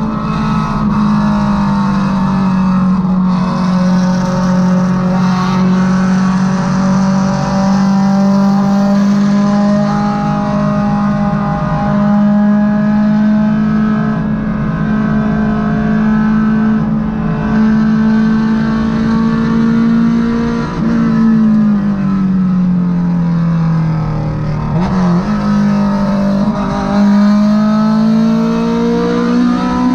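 Honda Civic EK's naturally aspirated VTEC four-cylinder engine droning at a steady pitch while cruising at highway speed, heard from inside the car over road and tyre noise. The engine note sags for a few seconds about two-thirds through, then picks up again and climbs near the end.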